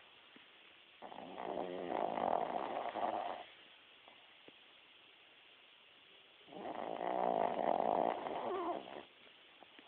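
Sleeping dog snoring: two long snores, each about two and a half seconds, about five seconds apart.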